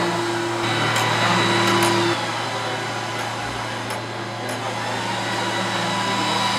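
Océ XT550 flatbed printer running while printing: a steady mechanical whir over a low hum, with a thin high whine, as the print carriage travels across the bed. A low tone cuts off about two seconds in.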